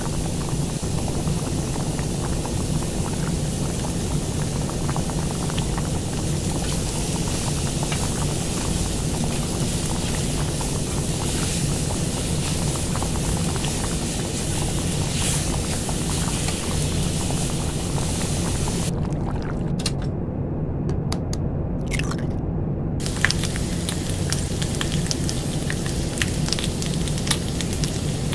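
Curry being cooked: wet squishing and scraping of a thick sauce, with small clicks, over a steady low hum.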